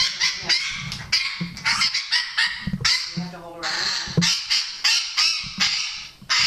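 Parrot squawking harshly and repeatedly, about two loud screeches a second, in protest at being wrapped and held by the neck.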